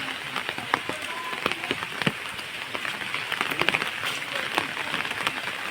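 Steady rain falling, with close drops striking a surface as irregular sharp ticks over a continuous hiss.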